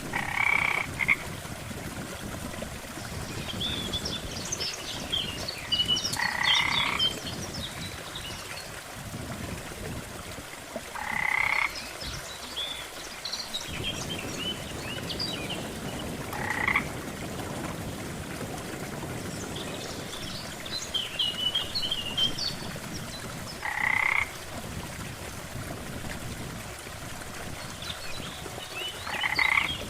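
Frog croaking, with a short call about every five seconds over a steady background of water noise. Clusters of higher, chirping calls come in between the croaks.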